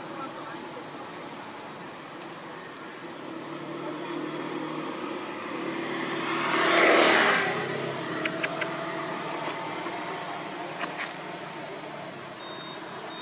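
A motor vehicle passing by: its noise swells slowly, is loudest about seven seconds in, then fades away. A few sharp clicks follow, over a steady high hum.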